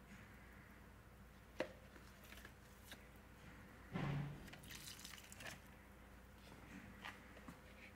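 Water poured from a plastic jug onto the soil of potted plants, faint trickling and dripping, with a few light clicks and a soft bump about four seconds in.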